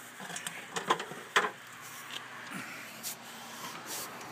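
A few sharp knocks and clicks, about four in the first second and a half and one more near the end, over a steady faint hiss: the knocks of moving about among hand tools and wooden blocks.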